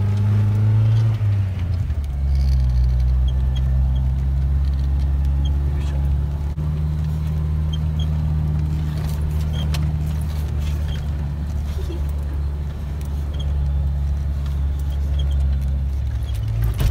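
Jeep engine droning steadily, heard from inside the cabin while it drives over beach sand. The drone drops to a lower pitch about two seconds in and holds there.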